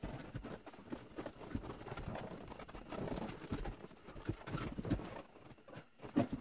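Handling noise from a plastic boat dash panel being worked loose by hand: uneven rubbing, creaking and light knocks, with clothing rustle.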